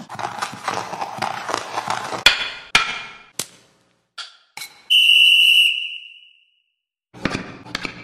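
A run of ice hockey sound effects: busy rough noise for about two seconds, then several sharp hits, then one steady high whistle blast of just under a second, like a referee's whistle, fading out. A short burst of rough noise returns near the end.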